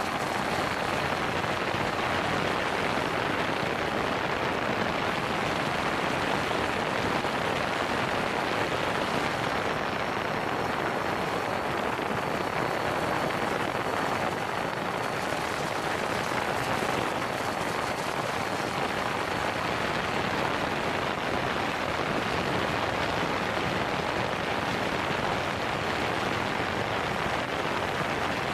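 DJI Phantom 3 4K quadcopter in flight, heard from a camera strapped right under it: a steady rush of propeller wash over the microphone with a faint high motor whine.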